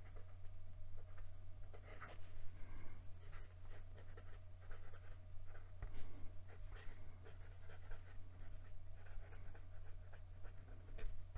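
Lamy Studio fountain pen with a 14K gold oblique medium nib writing cursive on Clairefontaine 90 gsm paper: faint, irregular strokes of the nib on the paper, over a steady low hum.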